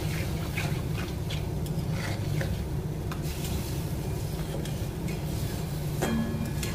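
A spatula stirring and scraping through a thick, bubbling curry in a metal kadai, making irregular short scrapes and clicks over a steady low hum.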